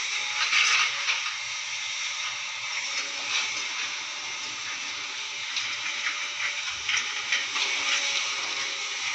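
Water pouring and splashing, a steady rush with irregular louder surges.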